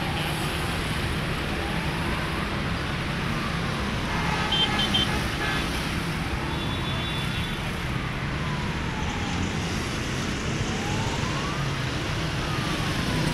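A siren wailing slowly up and down over a steady rumble of road traffic, with a brief higher-pitched tone about four to five seconds in.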